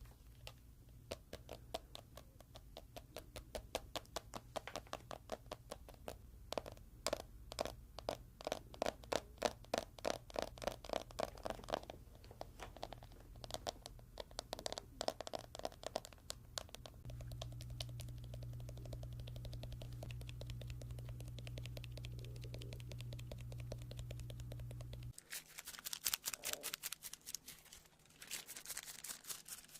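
Rapid, irregular clicking and scratching close to the microphone, over a steady low hum. Past the middle the clicks die away for several seconds while the hum is louder; then the hum stops and a last run of clicks comes near the end.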